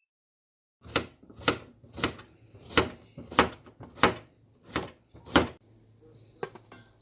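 About ten sharp, evenly spaced knocks, roughly two a second, stopping after about five seconds, followed by a few faint ticks.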